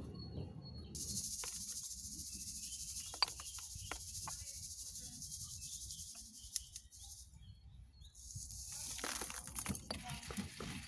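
Scattered clicks and gritty crunching as crushed old forge bedding of charcoal and clay is handled in a stone mortar and on a metal tray, over a steady high hiss. Near the end it turns into a dense rattle as the ground bedding is tipped into a plastic crate.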